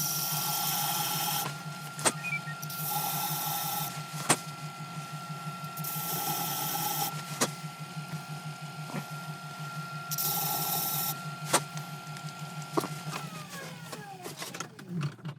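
Wood lathe motor running with a steady whine, with about four second-long bursts of sandpaper hiss against it and a few sharp clicks. About thirteen seconds in the lathe is switched off and its whine falls in pitch as it spins down.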